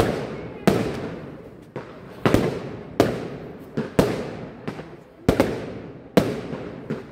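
Aerial firework shells bursting in quick succession, a sharp bang every half second to second, each trailing off in a fading echo.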